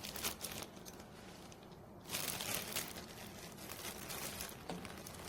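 Irregular rustling and crinkling in short bursts, with a quieter stretch about one to two seconds in.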